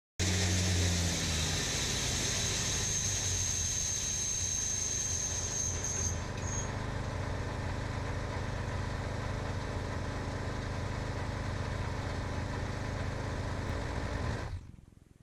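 Bandsaw sawmill's engine running steadily with the band blade turning, a thin high whine fading out about six seconds in. The sound cuts off sharply near the end.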